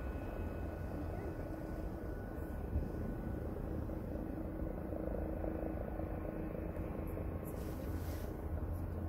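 Distant jet aircraft on the airfield: a steady low rumble with a faint high whine that fades out in the first few seconds, and a short hiss about eight seconds in.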